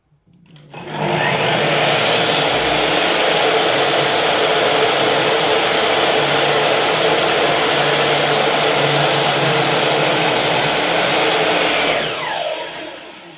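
An electric power tool's motor starts about half a second in, runs steadily and loudly for about eleven seconds, then spins down with falling pitch near the end.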